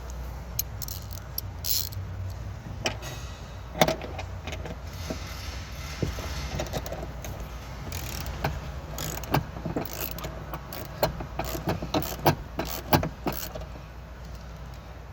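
Ratchet and socket working the 14 mm lower seat belt anchor bolt: irregular sharp clicks and metal knocks, coming more often in the second half, over a steady low hum.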